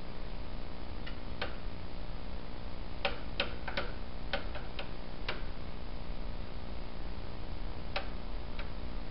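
Scattered light clicks and clinks of small zinc-plated bolts and tools being handled, irregular and bunched near the middle, over a steady low electrical hum.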